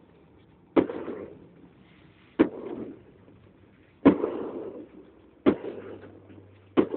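Fireworks bursting overhead: five sharp bangs roughly a second and a half apart, each followed by a rumbling echo that dies away.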